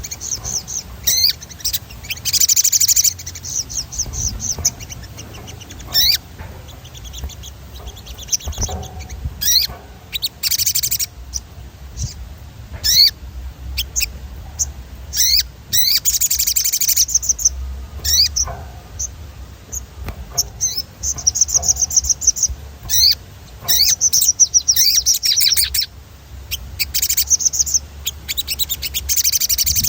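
A sogon singing in repeated bursts of rapid, high chirping trills, each lasting up to about two seconds, with a steady low hum underneath.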